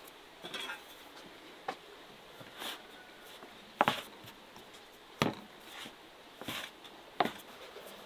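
A metal dough blade knocking against a wooden board as a mass of bread dough is cut into portions: about seven short, sharp knocks at uneven intervals, the loudest a close pair about four seconds in.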